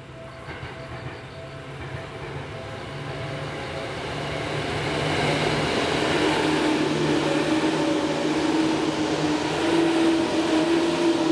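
Seibu 10000 series limited express electric train approaching and passing close by. The running noise of its wheels on the rails grows louder over the first five seconds or so, then stays loud as the cars go past, with a steady hum.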